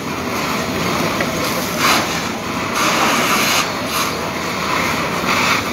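A steady rushing, hissing noise from a burning building being sprayed with a fire hose, with several louder hissing surges.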